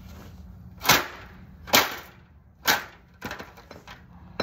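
Three hard, sharp blows about a second apart, striking a TV set's casing as it is smashed apart to free its speakers.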